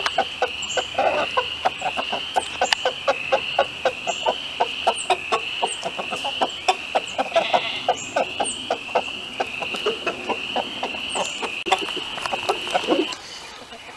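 A flock of barred hens clucking in quick, overlapping short calls as they peck and feed on a pile of pulled weeds and grass. A steady high wavering tone runs underneath and stops about a second before the end.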